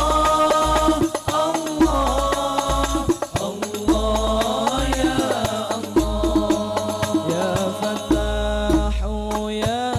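Arabic sholawat singing: a male lead vocalist sings a melismatic devotional melody into a microphone, amplified through a PA, over the steady beat of al-Banjari frame drums (terbang).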